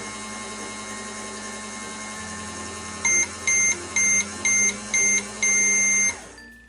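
Toy microwave running with a steady electronic hum, then beeping five short times and once long, the signal that its cycle is finished.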